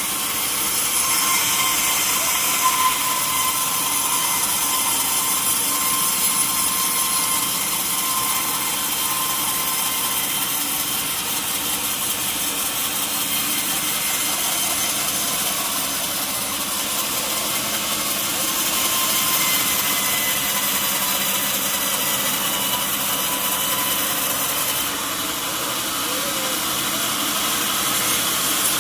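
Sawmill saw cutting through a mahogany log, a steady, continuous cutting noise from the blade in the wood.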